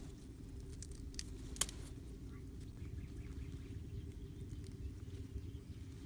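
A few light clicks and taps of thin bamboo sticks being handled and pushed into soft ground, the sharpest about one and a half seconds in, over a steady low rumble.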